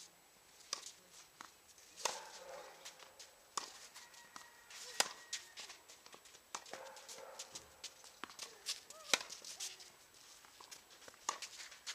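Tennis ball being struck and bouncing on the court, heard as irregular sharp knocks, the strongest about 2, 5 and 9 seconds in, with footsteps between them.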